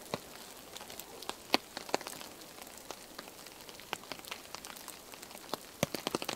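Wet snow or sleet falling in snowy woodland, landing on surfaces: a steady faint hiss with many irregular small ticks, a few louder about one and a half and two seconds in, and a cluster near the end.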